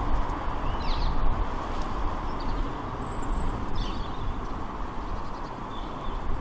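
Steady rushing outdoor background noise with a low rumble, broken about four times by short, high bird chirps.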